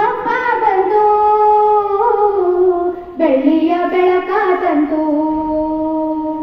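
A group of schoolgirls singing together into a microphone, a slow melody of held notes with a short breath about halfway and a long held note near the end.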